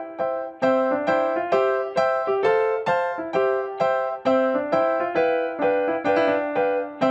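Background music: a light melody played on a piano-like keyboard, short struck notes that fade quickly, evenly spaced at about two a second.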